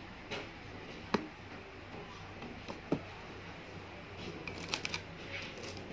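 Handling noise: a few scattered light knocks and clicks as kitchenware and the phone are handled, with a quick cluster of clicks near the end, over a low steady background hum.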